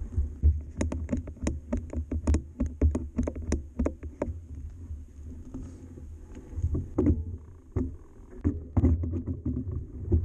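Yeti SB130 full-suspension mountain bike rattling over a rough gravel track: a dense run of sharp knocks and clicks, several a second in the first few seconds and sparser after, over a steady low rumble.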